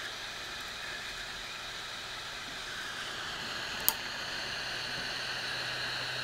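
Hot air rework station blowing steadily on a surface-mount electrolytic capacitor to melt its solder: an even airy hiss with a faint low hum. A single sharp click comes a little under four seconds in.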